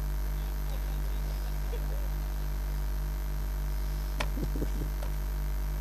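Steady low electrical mains hum through the stage sound system, with a faint click and a brief short voice sound about four seconds in.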